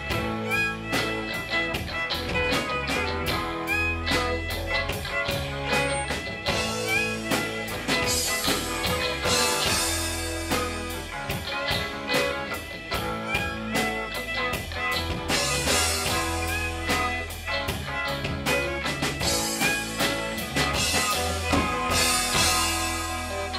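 Live country band playing an instrumental passage: electric guitars over bass and a drum kit keeping a steady beat.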